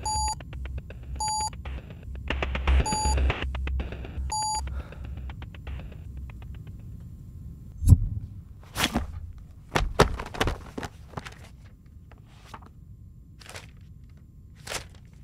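Four short electronic error beeps from a tablet whose search has come up 'not found', evenly spaced over the first few seconds. About eight seconds in comes a sharp thud, then scattered knocks and rustles of handling.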